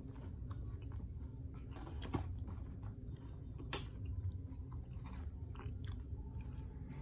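A person chewing a mouthful of Carvel Flying Saucer ice cream sandwich, soft serve between chocolate wafers, with small irregular wet smacks and clicks of the mouth. There is one sharp click a little under four seconds in.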